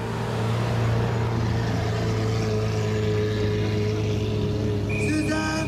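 Ferrari 458's naturally aspirated V8 running steadily at low revs as the car rolls slowly past, its pitch sagging slightly. A brief high-pitched sound cuts in near the end.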